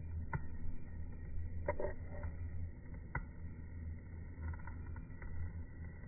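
Steady low background rumble with a few faint, short clicks.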